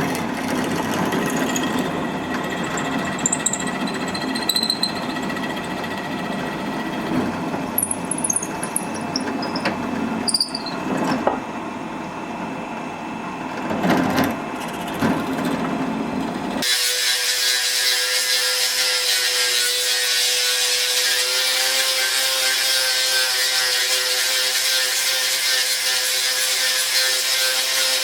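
Power tools working on steel: an uneven machine sound with scattered knocks and clicks, then about 17 s in an abrupt change to a steady, hissing run with a constant hum, as of a grinder running on.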